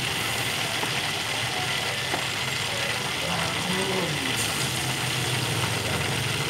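Hot oil sizzling and crackling steadily in a deep pot as breaded chicken drumsticks deep-fry.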